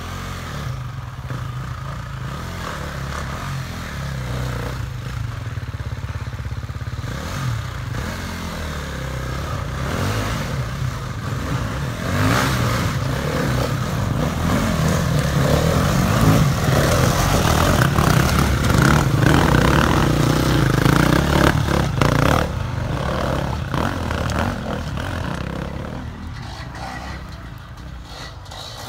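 Enduro motorcycles riding along a forest trail, their engines running under load, growing louder as they come close, loudest in the middle, then fading as they ride off.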